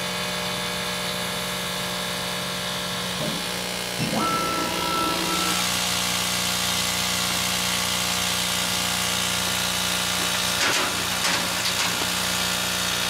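Steady hum of a CO2 laser cutter's running equipment (fans and pumps). About four seconds in it grows slightly louder and hissier, with a brief high tone, and a few light knocks come late on.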